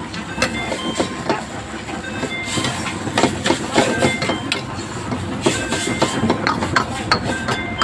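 Metal ladle clanking and scraping against a wok in quick, irregular strikes, some ringing briefly, as yellow noodles and vegetables are stir-fried, over a steady hiss of frying and the burner.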